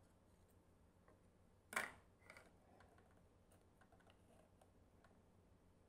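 A small plastic miniature shelving rack being set down in a model garage diorama: one sharp tap about two seconds in, then a few faint clicks of plastic on plastic, otherwise near silence.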